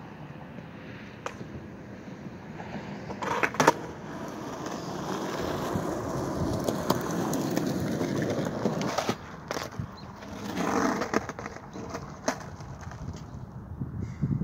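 Skateboard wheels rolling on parking-lot asphalt, the rumble swelling for several seconds as the board passes close. Sharp clacks of the deck popping and slapping the pavement come about three and a half seconds in, and again several times between about nine and twelve seconds in, during backside heelflip attempts.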